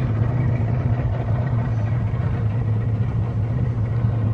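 Boat motor running steadily, a constant low drone with a rushing haze over it.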